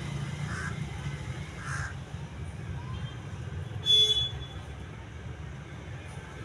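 A crow cawing twice, about a second apart, over a low steady traffic rumble. A brief, loud, high squeak cuts in about four seconds in.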